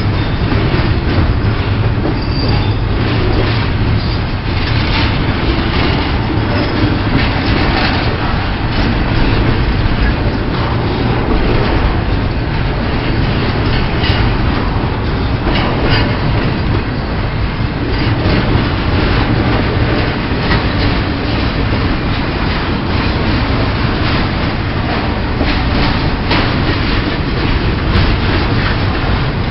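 Pan Am Railways freight train's cars rolling past: a loud, steady rumble of steel wheels on rail, with irregular clacks as the wheels cross rail joints.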